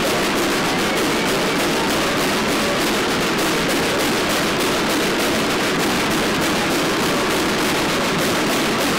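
Steady, dense noise of a parade crowd, with rapid, irregular clicks or rattles running over it.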